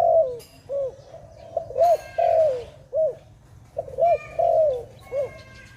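Zebra dove (Malay dove) calling: a quick series of short, soft cooing notes, each rising and falling, with a few longer notes that trail downward. Faint chirps of other birds sound higher up.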